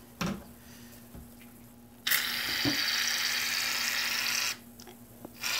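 Shaving cream aerosol can spraying foam: a loud, steady hiss that starts suddenly about two seconds in, stops after a couple of seconds, and starts again just before the end.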